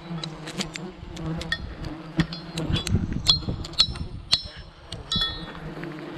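Wild honeybees buzzing in a steady swarm hum around their nest, with many sharp clicks and knocks over it.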